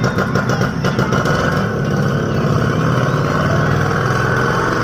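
Small engine of a bajaj auto-rickshaw running steadily, pulsing in the first second and then smoother.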